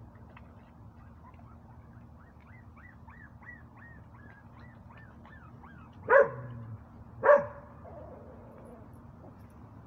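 A dog barks twice, sharp and loud, about six and seven seconds in. Before the barks comes a run of thin, high whimpering or chirping notes at about three a second.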